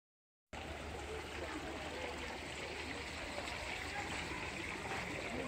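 Water of a shrine's money-washing spring trickling and running steadily into its rocky pond, starting suddenly about half a second in.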